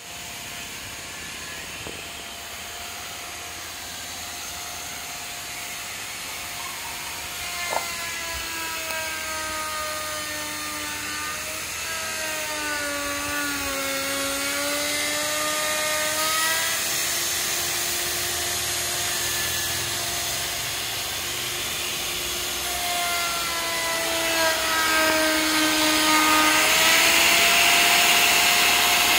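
Handheld electric wood router running and cutting along the edge of a wooden door panel: a steady whine that drops in pitch twice as the bit bites into the wood, then recovers, growing louder toward the end.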